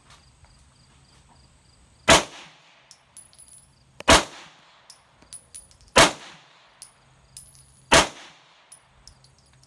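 Semi-automatic pistol fired four times in slow, deliberate single shots about two seconds apart, each a sharp crack with a short ringing tail.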